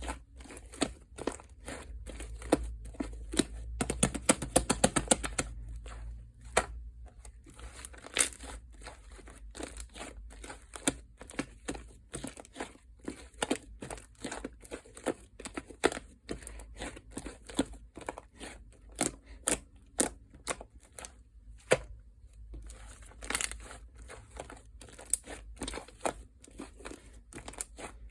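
Fluffy shaving-foam slime being squished and pressed by hand, giving a continual run of irregular small pops, clicks and crackles.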